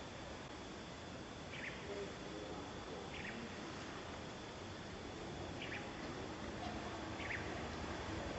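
Outdoor background hiss with faint short high chirps that come every one and a half to two seconds.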